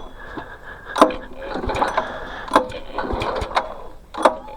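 Small gasoline engine of a pressure washer cranked over by its recoil pull-starter with the spark plug out for a spark test, so it spins freely without firing. It is pulled repeatedly, with a sharp click about every second and a half and a whirring between the clicks.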